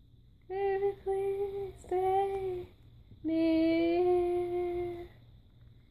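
A woman singing unaccompanied: two short phrases of held, steady notes in a clear voice, with a pause between them.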